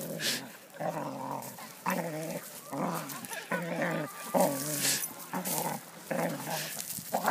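Two small dogs play-fighting, giving a string of short rough growls about once or twice a second, with scuffling on gravel between them.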